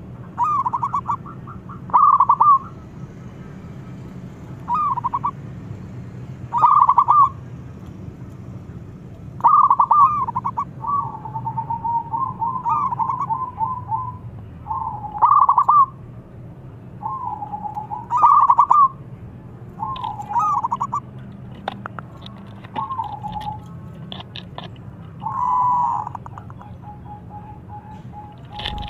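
Zebra dove (perkutut) cooing: short rolling coos of about a second each, repeated every one to three seconds, with longer stuttering trills in between. A faint steady low hum lies beneath, and a few sharp clicks come in the second half.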